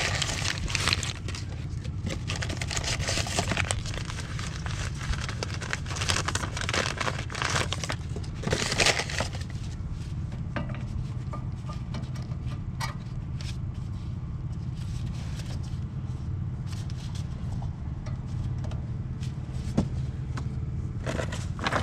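Metal scraping and clicking as a rear brake pad is worked out of the caliper bracket of a 2012 Hyundai Veloster. The scraping is busiest for the first nine seconds or so, then thins to scattered clicks, over a steady low hum.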